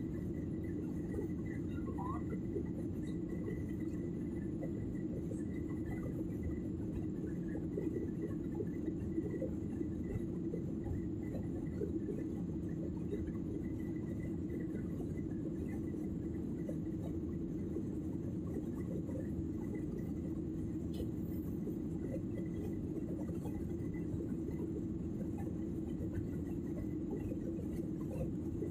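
Steady low drone of a jet airliner's cabin in flight, the engines and rushing air at an even level during the climb after takeoff, with a faint thin high tone running steadily over it.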